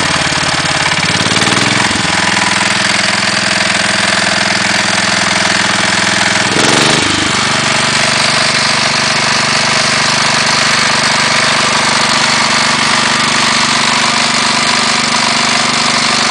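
Case 444 garden tractor engine running, with a knock that the owner takes for piston slap. The engine speed shifts briefly about a second in and again around seven seconds in, then settles.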